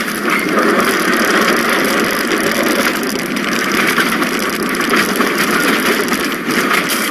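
Steady car noise, engine and road sound with no sharp bang.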